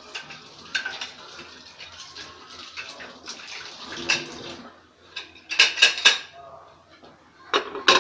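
Aluminium pressure cooker's lid being fitted and closed: a quick run of metal clanks and scrapes a little past halfway, then more clanks near the end as the lid is handled shut.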